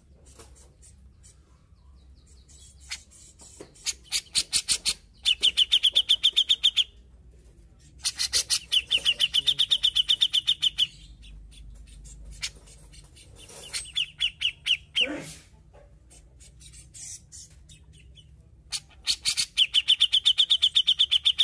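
Grey-cheeked bulbul (cucak jenggot) calling in four bouts of fast chatter. Each bout is a run of rapidly repeated notes that settles into a steady trill lasting one to three seconds, with short pauses between bouts.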